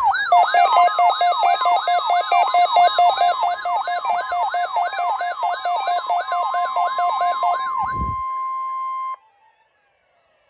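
NOAA Weather Radio warning alarm during its weekly test: a steady 1050 Hz alarm tone with an electronic siren-like alert sweeping over it, about three sweeps a second. The sweeping stops about eight seconds in, and the steady tone cuts off a second later.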